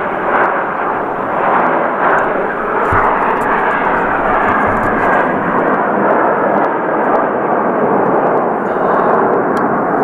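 A Canadair CT-114 Tutor jet flying overhead: the steady rushing noise of its single turbojet engine, which holds at a constant loudness throughout.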